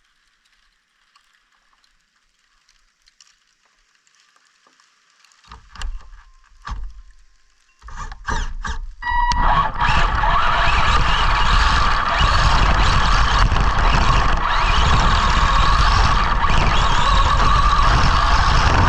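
Arrma Senton RC truck driving in snow: after a quiet start and a few knocks and bumps, its electric motor whine sets in about nine seconds in and carries on steadily under a loud rushing noise.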